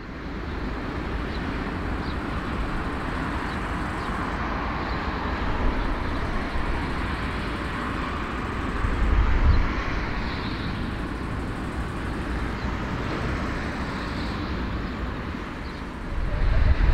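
Four CFM56 jet engines of a taxiing Airbus A340-300 at low power: a steady, even noise with a strong low rumble.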